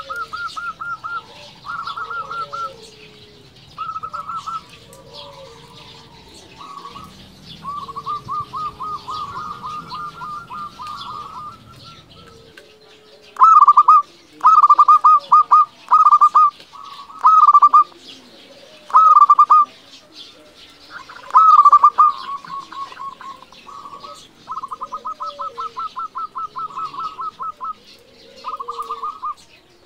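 Zebra dove (perkutut) singing: repeated phrases of rapid, stuttering coos, much louder from about halfway through. Faint high chirps sit behind them.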